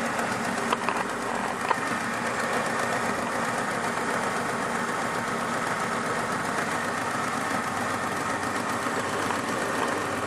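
Car engine idling steadily, with the slapping noise of a drive belt that is going bad. A few brief clicks sound in the first two seconds.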